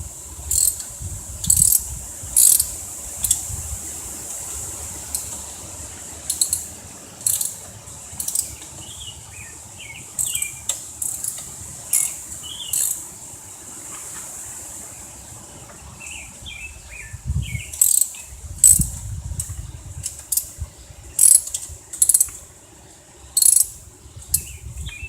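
Socket wrench ratcheting and metal tools clicking in sharp, irregular clicks while bolts on a John Deere valve cover are worked loose, with low handling knocks now and then.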